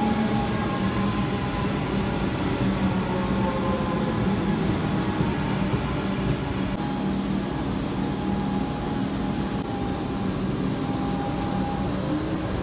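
Melbourne suburban electric train running along the platform: a steady rumble of wheels on rails with the whine of its electric motors, whose pitch slides slowly up and down.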